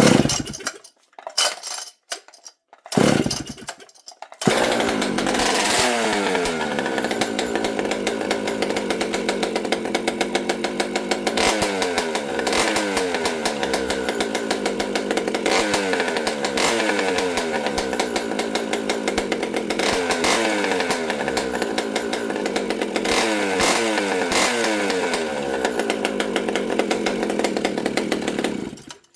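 Old Pioneer chainsaw, stock with an expansion pipe, pull-started and catching about four seconds in, then running with repeated throttle blips, the revs falling away after each, until it is shut off near the end. It runs smoothly.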